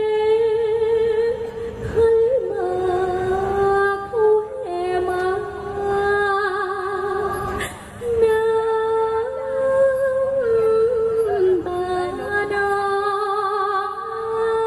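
A woman singing into a microphone in Thai likay style: long, ornamented held notes with wide vibrato, sliding between pitches, with short breaths between phrases and no audible accompaniment.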